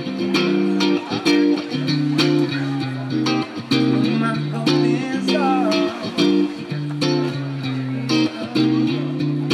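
Background music: a guitar-led track with bass and a steady beat.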